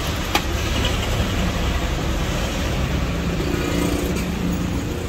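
Steady road traffic noise from passing vehicles, with a sharp click about half a second in.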